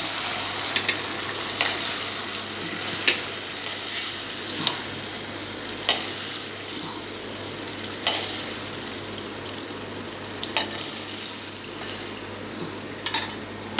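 Chilli paneer sizzling in a hot non-stick wok as it is spooned out onto a plate, with sharp clicks every second or two as the metal spoon knocks and scrapes against the pan.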